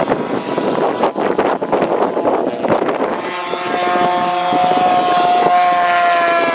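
Engine of a giant-scale RC model airplane flying low past. It starts as a rough, choppy noise, and about three seconds in it becomes a clear, steady engine note that drops in pitch near the end as the plane passes.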